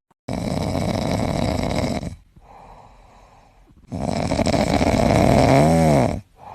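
Loud snoring: two long, rasping breaths of about two seconds each with a short quiet pause between them, the second ending in a brief rising-then-falling whistle-like tone.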